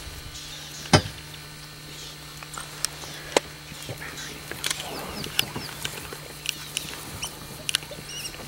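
African wild dogs twittering and squeaking in short, high chirps while the pack crowds together with its pups. A sharp click about a second in, and a low steady hum underneath.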